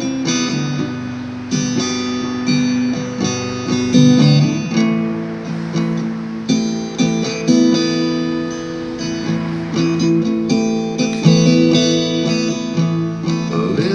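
Acoustic guitar strumming chords in a steady rhythm, an instrumental break between sung lines of a song.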